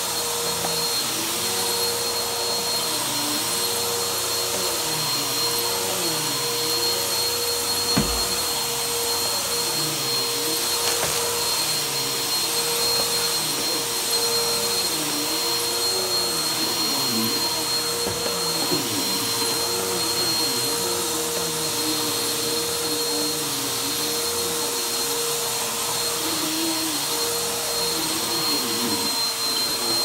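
A bagless upright vacuum cleaner running steadily as it is pushed back and forth over carpet and a rug, with a whining motor tone and a pitch that wavers with the strokes. There is a sharp click about eight seconds in and a couple of fainter ones later.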